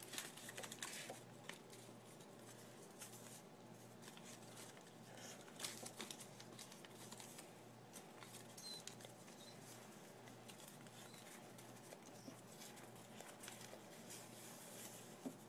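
Faint rustling and crinkling of a folded paper strip being handled and creased, with a few small ticks.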